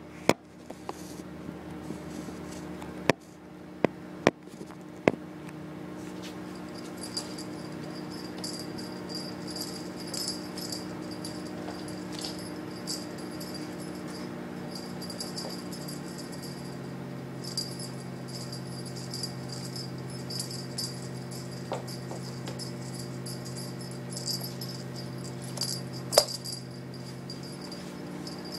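Cat toy jingling and rattling in irregular bursts over a steady low hum, with a few sharp clicks near the start and one near the end.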